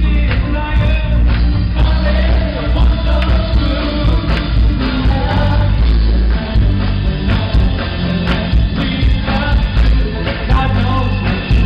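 A song with a singing voice over steady, heavy bass, playing without a break.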